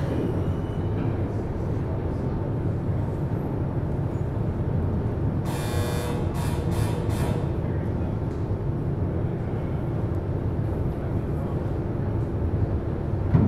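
Steady low rumble of a car ferry's machinery heard on its open vehicle deck while docking. About five and a half seconds in come a longer hiss and then about three short ones, like air being let off.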